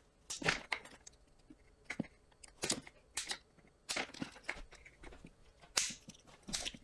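Small side cutters snipping through heat-shrink tubing: several sharp, short clicks at irregular intervals, with light handling of the tubing between cuts.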